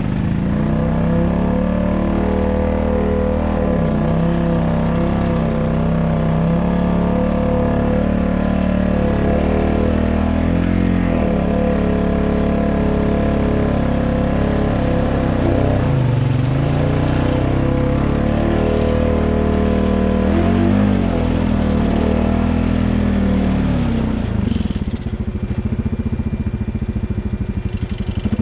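Quad bike engine running under load in deep bog, its revs rising and falling several times, then settling to a steadier, lower note near the end.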